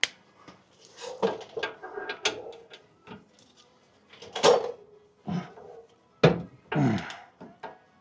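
Metal clicks, clanks and creaks of a torque wrench and socket being fitted and worked on a truck's rear brake bolt, in scattered sharp knocks with short falling creaks near the end.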